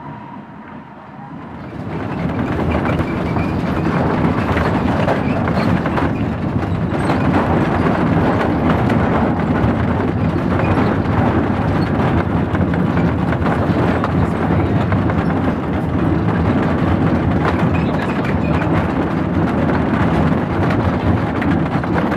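Small park train's open wooden passenger car running along narrow track, heard from on board: a steady rumble of wheels on rail with rattling clatter. It comes in loudly about two seconds in, after a quieter stretch.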